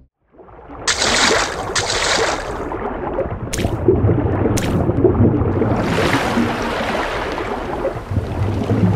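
Water bubbling and sloshing in a steady rush, with two brief bright splashes early on and two short sharp clicks a few seconds in.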